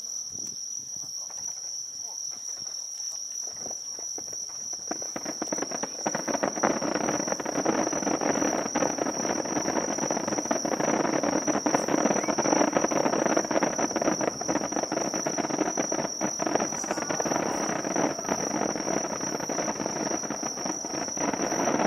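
Insects trilling steadily at one high pitch. About five seconds in, a louder crowd murmur rises beneath it and stays.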